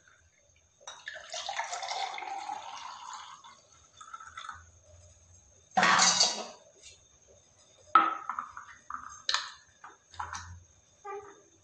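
Blended beetroot, carrot and apple juice pouring from a blender jar into a glass bottle for a couple of seconds. About six seconds in comes one loud clatter of glassware and utensils. After that come a sharp click and several small knocks as the bottle's cap is handled and put on.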